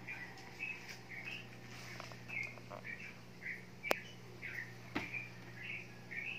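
A small bird chirping over and over, short high chirps about two a second, with two sharp clicks about four and five seconds in over a steady low hum.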